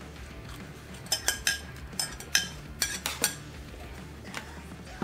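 Forks and spoons clinking and scraping against metal sheet pans and bowls as people eat, with a cluster of sharp clinks between about one and three and a half seconds in, over a steady low hum.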